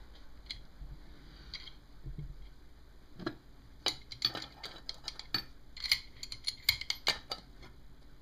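Sharp metal clicks and taps as a homemade C-clamp valve spring compressor, its threaded screw tipped with a cut-down spark plug socket, is fitted against a valve spring retainer in a Kawasaki VN750 cylinder head. A few isolated clicks come first, then a quick run of clicks from about four seconds in.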